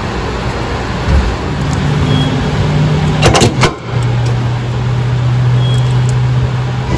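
A steady machine hum with a constant rushing noise. A brief rattle of sharp clicks comes a little over three seconds in.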